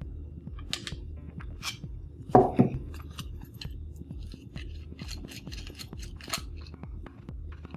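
Small clicks, ticks and scrapes of a Yihua 936 soldering station's parts being handled as it is unscrewed and taken apart, with a louder double knock about two and a half seconds in, over a low steady hum.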